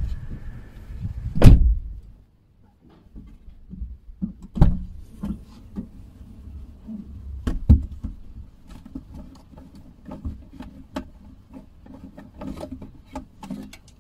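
A heavy thump about a second and a half in, then scattered light knocks and clicks.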